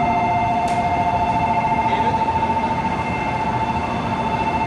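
Electronic departure bell ringing on a Shinkansen platform, a steady two-tone ring signalling that the train is about to leave, over the low rumble of a Shinkansen train moving on a neighbouring track.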